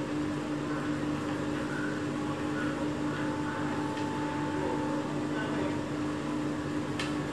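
Steady mechanical hum with a held tone in it, and a single sharp click near the end.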